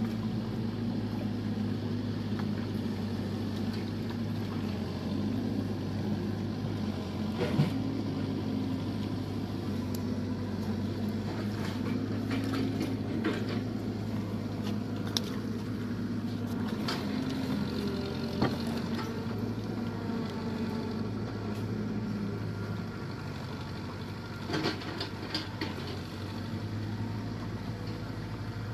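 Small boat engine running at a steady low speed, a constant low hum. A few sharp knocks and clicks on the wooden hull stand out, the loudest about a quarter of the way in.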